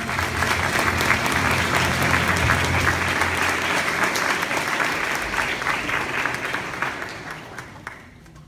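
Audience clapping, dense and steady, dying away about a second before the end.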